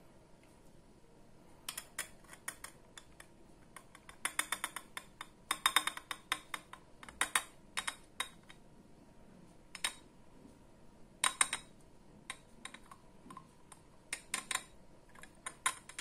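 Glass beaker tapping and clinking against the neck of a glass bottle while a thick oil-and-aloe-gel mixture is tipped in: irregular sharp clicks in clusters, loudest about six and eleven seconds in.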